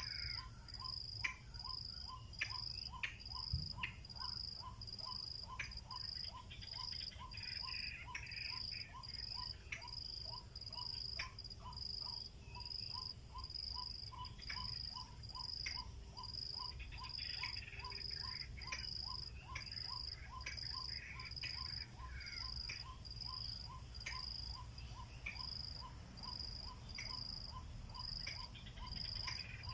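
Outdoor insect chorus: a steady high chirp repeating about twice a second, with a lower pulsing note keeping the same beat. Now and then a brief rough bird call sounds over it.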